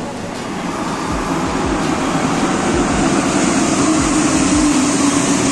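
Rubber-tyred metro train running alongside the platform. Its rumble grows louder, and a low steady hum comes in about halfway through.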